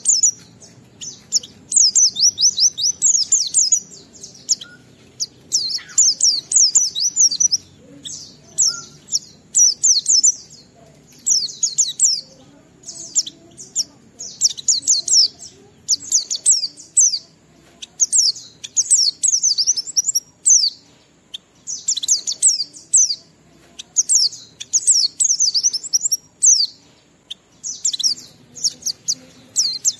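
White-eye (pleci) singing in the rapid, chattering 'ngalas' style: quick runs of high, falling notes in short bursts, repeated with brief pauses.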